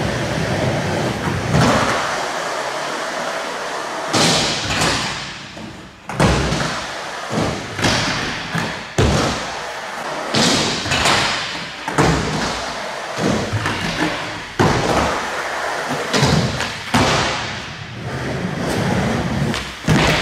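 Skateboard wheels rolling on a smooth concrete floor, broken by repeated sharp pops and landings of the board. Near the end the skater bails: a loud slam as the board flies away and he hits the floor.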